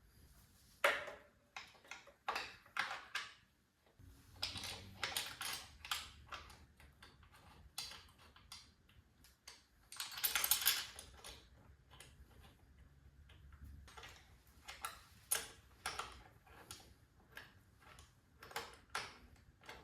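Irregular light clicks, taps and rattles of hand work on motorcycle parts, with a longer rustling scrape about halfway through.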